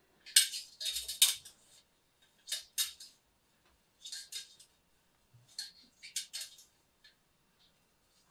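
Wire hook scraping inside a copper reflux condenser tube as it snares and drags out a wad of old stainless steel mesh packing, in repeated short metallic scratches and rasps.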